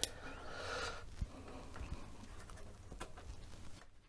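Light handling sounds of a PS2 mouse plug being fitted into a plastic mouse adapter: a sharp click at the start, a brief rustle, then a few scattered small clicks and knocks.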